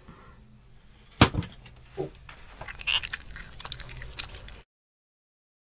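A person eating with a fork from a paper plate: a sharp click about a second in, then scattered small clicks of fork and mouth. The sound cuts out abruptly near the end.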